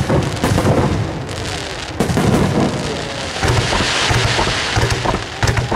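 Aerial fireworks shells bursting one after another with deep booms. In the middle there is a dense crackling hiss, and a last sharp report comes near the end.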